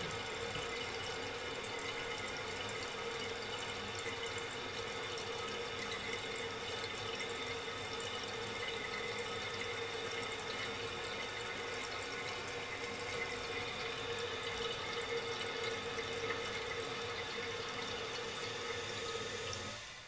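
The old Fluidmaster 400 fill valve in a 1984 Crane Radcliffe toilet tank refilling the tank after a flush: a steady hiss of rushing water with a faint tone in it. It shuts off near the end as the tank reaches its fill level.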